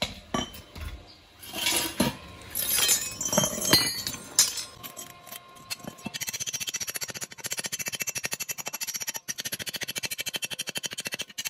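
Steel tools clinking and knocking as they are picked up and set down. Then a fast, evenly repeated run of metal strokes on a small welded steel cup held in locking pliers, as excess metal is worked off it.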